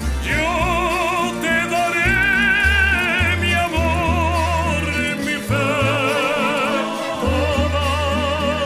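Colombian rondalla music in a serenade arrangement: a melody of held notes with strong vibrato, changing about once a second, over a steady bass line and accompaniment.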